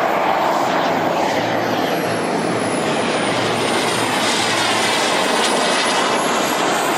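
Twin kerosene turbine engines of a large-scale RC F/A-18 Hornet model jet running, a steady rushing jet noise with a thin high whine that slides down in pitch and then rises again near the end.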